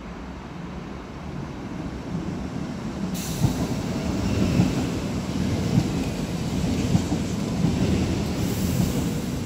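Two coupled ETR 103 electric multiple units (Alstom Coradia Stream) passing at speed along a platform. The noise of the train builds as it comes in, and from about halfway the wheels knock over rail joints roughly once a second.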